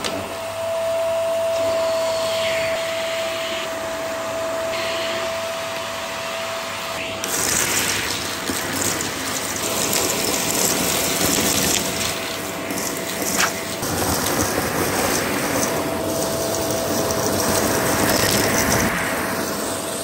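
Vax Mach Air Mk2 upright vacuum cleaner running, a steady motor whine over the rush of suction. From about seven seconds in the hiss gets louder and crackly as wood chips and grit are sucked up along the skirting board, with one sharp click about 13 seconds in.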